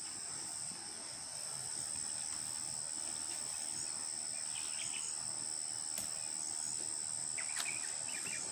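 Steady high-pitched chorus of insects, a constant shrill drone at two pitches, with a few faint short chirps over it.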